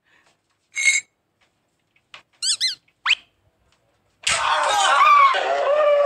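A few short high-pitched squeaks, one gliding upward, then from about four seconds in a loud, drawn-out high-pitched scream.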